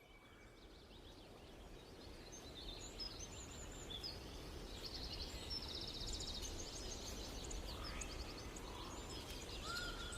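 Faint outdoor birdsong: several small birds chirping and trilling over a low background hum that fades in. A quick buzzy trill comes about five seconds in, and a steady whistled note near the end.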